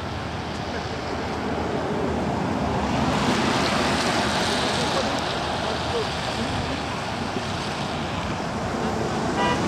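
Traffic passing on a wet road: a steady hiss of tyres on the wet asphalt that swells as vehicles go by about three to five seconds in, with wind on the microphone.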